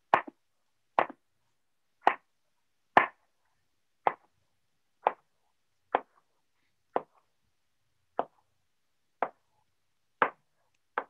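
Kitchen knife chopping through watermelon and striking the cutting board in a steady rhythm, about one cut a second, each a short wet knock.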